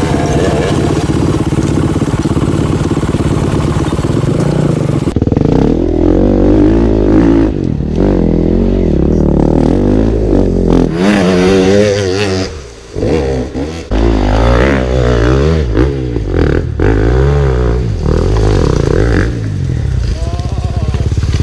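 Motorcycle engines revving, their pitch climbing and falling again and again. The sound changes abruptly about five seconds in, and it dips briefly about two-thirds of the way through.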